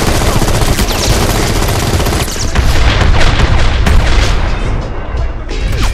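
Automatic rifle fire in dense, rapid volleys, mixed with loud film music.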